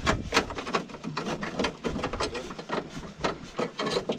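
Rapid, irregular small knocks and clicks of objects being handled, with no steady engine or wind noise under them.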